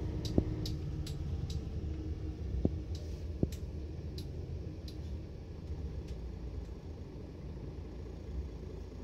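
Mercedes-Benz Citaro O530 city bus, heard from inside, with a steady low rumble from the moving bus. Over it come irregular sharp clicks from its chains, thickest in the first five seconds and thinning out after. Three louder knocks stand out at about half a second, two and a half seconds and three and a half seconds in.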